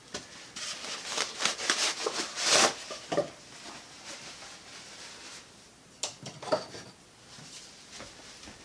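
Off-screen handling noise: rustling and light knocks of things being picked up and moved, in scattered bursts over the first three seconds and again about six seconds in.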